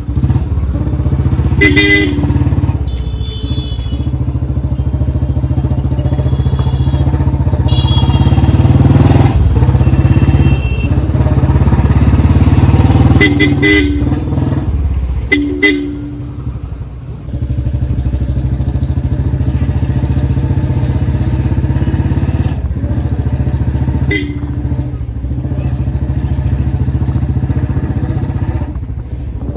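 Royal Enfield Bullet Standard 350 single-cylinder engine running on the road through a free-flow C-type bend pipe and short bottle silencer, with a loud, helicopter-like exhaust thump. A new gasket ring seals the bend pipe, so there is no air or gas leak and no popping when the throttle is released. The engine eases off briefly about halfway through, and vehicle horns beep several times.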